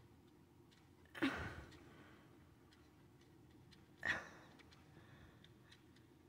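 Faint, even ticking of a small souvenir cuckoo clock held close to the microphone, with two short, louder noisy rushes about a second in and about four seconds in.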